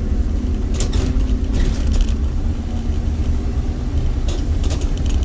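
City bus diesel engine running under way, a steady low rumble heard from inside the bus, with a few brief rattles or knocks at irregular moments.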